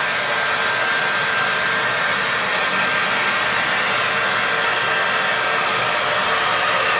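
Handheld hair dryer running steadily, a constant rush of blowing air with a faint steady whine, drying a puppy's wet coat.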